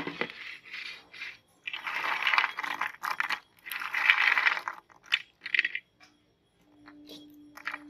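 Hard, crunchy cookies clattering and clinking against each other and the plate as hands scoop and stir them, in several bursts of about a second each. It goes quieter near the end, leaving a faint steady hum.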